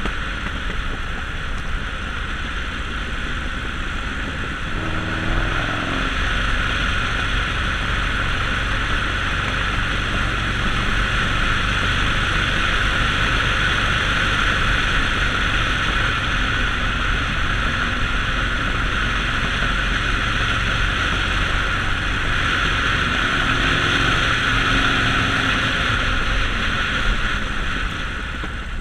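Harley-Davidson Sportster Forty-Eight's 1200 cc V-twin running under way, mixed with steady wind and road noise. The engine note shifts in pitch about five seconds in and again around twenty-four seconds in, and it gets a little louder after the first change.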